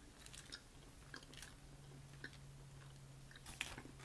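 Faint sounds of eating boiled crawfish: scattered soft clicks and crackles of shells being handled, and chewing, over a faint steady low hum.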